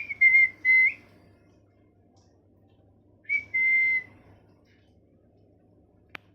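Ringneck parrot whistling: a quick run of three short whistles, then one longer held whistle a few seconds later. A single sharp click near the end.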